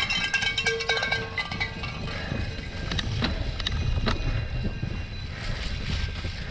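Wind rumbling on the microphone and a cyclocross bike rattling and clicking over rough, muddy ground. Spectators' cowbells clang through the first two seconds, then fade.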